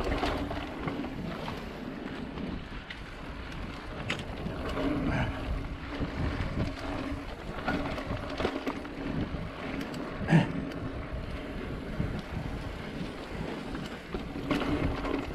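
Wind buffeting the microphone of a mountain biker's camera while the bike rolls over a dirt trail, with the bike rattling and knocking over bumps, one sharp knock loudest about ten seconds in, and a low steady hum that comes and goes.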